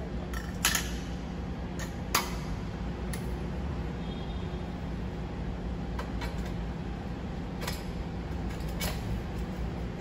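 Sharp metallic clinks and scrapes as a long tubular dB killer is handled and pushed into a motorcycle exhaust silencer's outlet, about half a dozen spread out, over a steady low hum.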